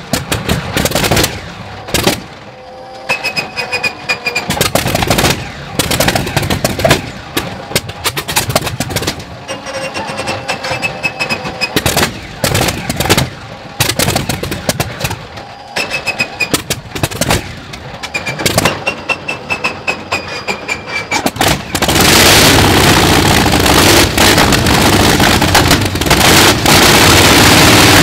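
Shvetsov ASh-62IR nine-cylinder radial aero engine being started: at first its cylinders fire only sporadically, in loud irregular bangs with uneven gaps. After about twenty seconds it catches and runs continuously and loudly.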